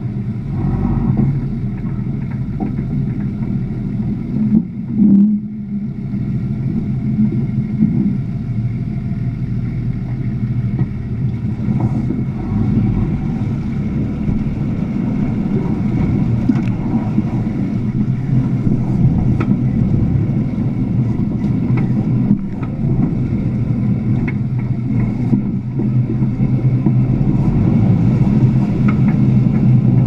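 Nissan GQ Patrol's 4.2-litre six-cylinder diesel engine running steadily, heard from beneath the chassis, with water sloshing and splashing around the tyres as the truck drives through a shallow crossing.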